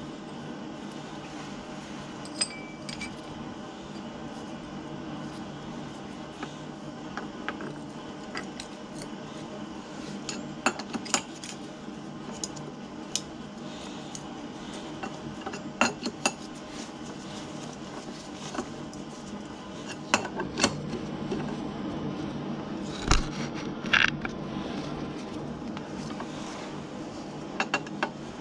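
Scattered sharp metallic clinks and taps of steel tools and parts being handled at a metal lathe's tool post and chuck, over a steady low hum.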